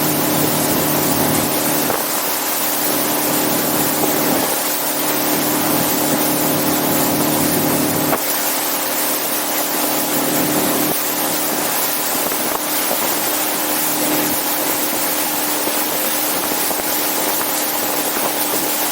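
Motorboat engine running steadily under way, with rushing wind and water noise over it; the engine's low hum shifts slightly every few seconds.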